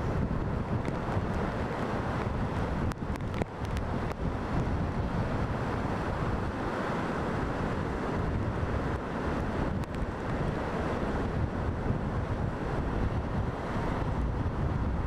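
Heavy hurricane-driven surf crashing and churning around wooden pier pilings, a continuous rush of breaking water, with strong wind buffeting the microphone.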